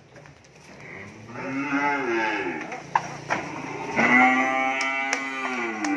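Cattle mooing twice: two long, drawn-out moos, each rising and then falling in pitch, the second louder. A few sharp knocks come between and during them.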